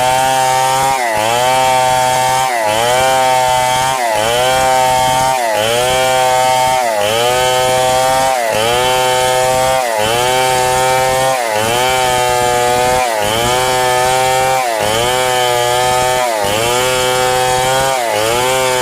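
Power saw ripping boards lengthwise. Its running note dips in pitch and recovers in a regular cycle about every second and a half.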